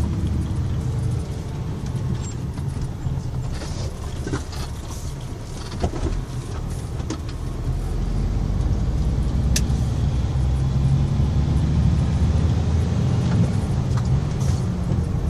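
A moving truck's engine and road noise: a steady low rumble that grows louder about halfway through, with a few light clicks.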